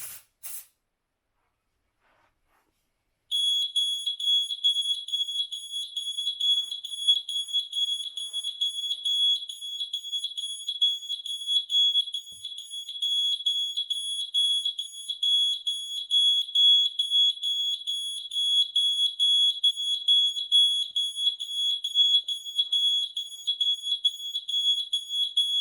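Heiman HS1SA photoelectric smoke alarm's sounder going off, set off by deodorant spray. A loud, shrill, steady-pitched alarm tone starts about three seconds in, sounds for about twenty-two seconds, then cuts off suddenly.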